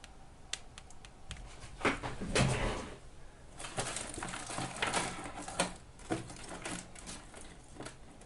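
Hands working on battery-pack wiring with small tools: a few sharp clicks, then irregular scraping and rustling from about two seconds in.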